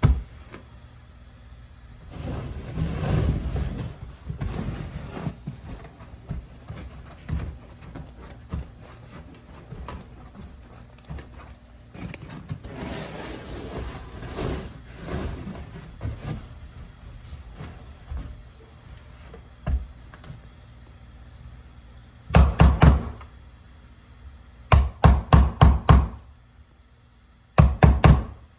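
Carpet being fitted to a wooden stair: rustling and shifting of the carpet with a few single knocks, then several short bursts of rapid hammer strikes, about five a second, as it is fastened down.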